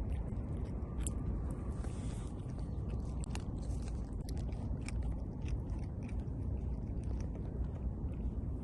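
A cat chewing and crunching food with many small irregular clicks, over a steady low rumble.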